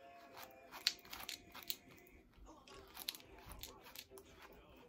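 Hairbrush dragged through conditioned hair, giving faint, irregular scratchy clicks as the bristles pull through the strands.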